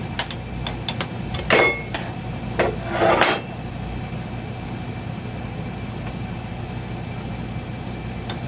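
Light metal taps, then two loud ringing metal-on-metal strikes about a second and a half apart as clips are knocked off the steel arms of a hydraulic bead breaker. A steady low hum runs underneath.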